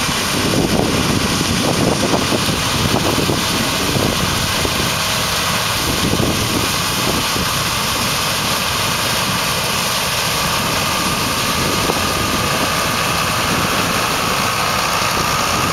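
Combine harvester running steadily during the soybean harvest: a dense, even machine noise, with a faint whine that grows stronger near the end.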